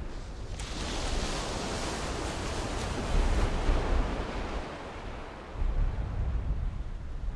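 Sea wave breaking and washing in: a hiss of surf that swells about half a second in and slowly dies away over several seconds, over a low rumble of wind on the microphone.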